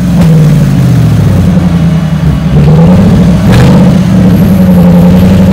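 Toyota off-road truck's engine running steadily at a fast idle, its note dipping briefly about two and a half seconds in. A sharp knock about three and a half seconds in.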